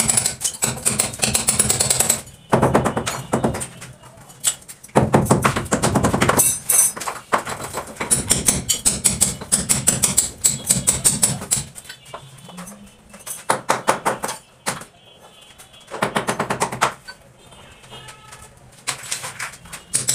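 Bursts of rapid, sharp clattering impacts from a tool worked against the door frame, separated by short pauses.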